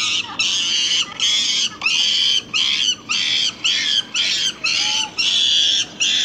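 A young chimpanzee screaming, a rapid string of about eleven loud, high-pitched shrieks, roughly two a second.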